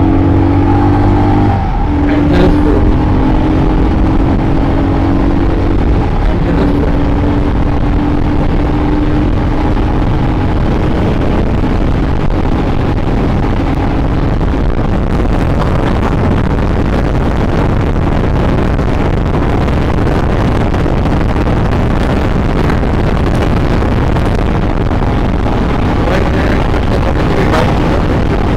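Royal Enfield Scram 411's single-cylinder engine pulled at full throttle through the gears, its note climbing and dropping at gear changes about two and six seconds in. Past the middle the engine note fades under a steady rush of wind noise as the bike runs at high speed.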